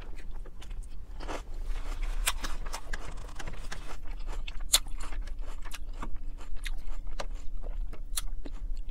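Close-up chewing of crisp lettuce salad: many short, sharp crunches and wet mouth clicks, irregular and continuous.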